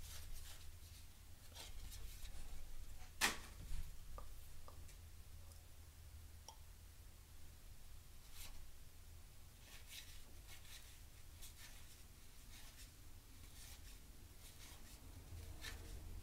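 A stack of baseball cards flipped through by hand: faint sliding and soft taps of card stock, with one sharper tap about three seconds in.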